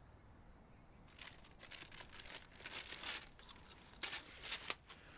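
Scuffle of one man grabbing another: a run of sharp rustling and crinkling noises from clothing and handling, starting about a second in, with no words.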